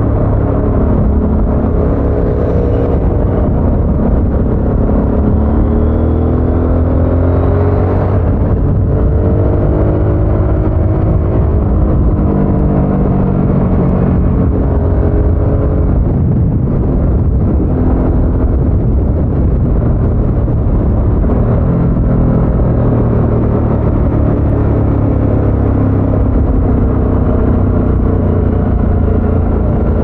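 Harley-Davidson Sportster S's liquid-cooled Revolution Max 1250 V-twin on its stock exhaust, running under load while being ridden, its pitch rising and falling several times as it pulls and eases off.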